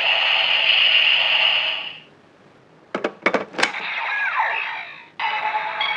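DX Ziku Driver toy belt with the DX Gaim Ridewatch fitted, playing electronic sound effects and music through its small speaker. A tune cuts off about two seconds in; about a second later come a few sharp plastic clicks and a falling electronic sound. Near the end a new steady looping tune starts.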